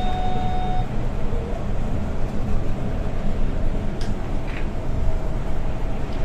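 Cabin noise of a Setra S 415 LE business diesel bus under way: a steady engine and road rumble. A short electronic beep sounds right at the start, and a couple of faint ticks come about four seconds in.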